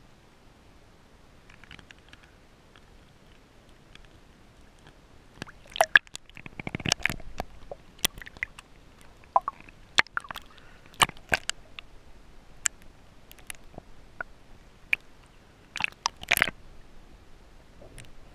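Seawater sloshing and splashing around a camera at the sea surface, with sharp irregular clicks and knocks. Faint for about the first five seconds, then a busy run of splashes and taps.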